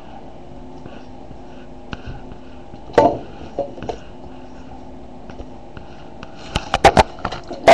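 Steady low hum broken by sharp clicks and knocks: one loud knock about three seconds in, two lighter ones soon after, and a quick run of clicks near the end.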